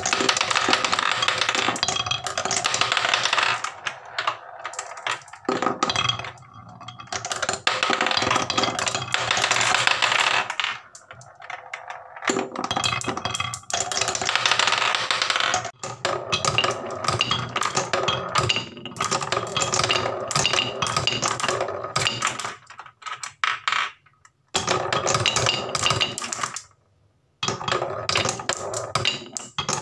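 Marbles rolling round a wooden funnel bowl carved with concentric grooves, giving a fast, dense clicking rattle as they ride over the ridges. It comes in runs of several seconds broken by short quiet gaps. Near the end a glass marble rolls along a curved wooden track.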